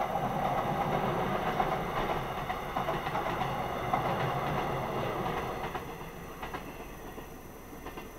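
Mugunghwa-ho passenger train crossing a railway bridge, its wheels clattering over the rail joints. The sound fades away from about six seconds in as the train passes.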